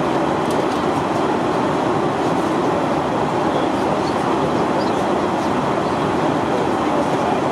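Steady cabin noise inside a Boeing 737-800 airliner in flight: an even rush of airflow and jet-engine noise at a constant level.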